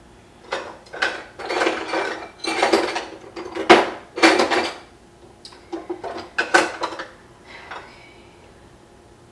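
Metal kitchen utensils and cookware clattering: a run of knocks and rattles, loudest about four seconds in, that stops about seven seconds in.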